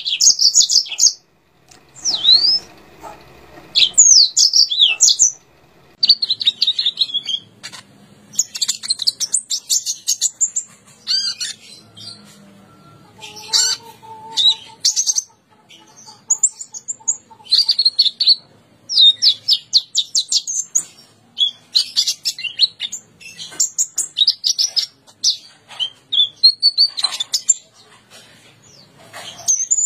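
A songbird singing in loud, varied phrases of rapid high chirps, trills and sweeping whistles, broken by short pauses.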